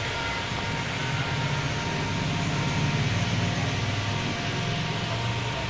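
A low engine rumble that builds about a second in and fades near the end, over a steady hiss.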